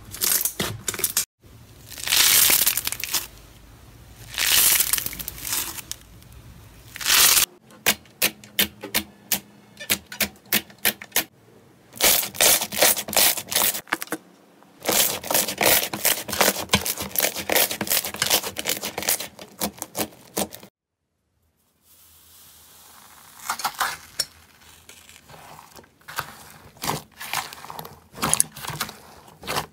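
Hands squeezing, pressing and poking slime: wet squishing with runs of sharp clicks and crackling pops as air pockets burst. There is a brief gap of silence about two-thirds of the way through.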